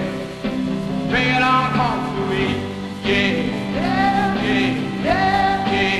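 Rhythm-and-blues rock band playing, with guitar, drums and organ, while a man's voice sings long drawn-out notes that slide in pitch, about three of them.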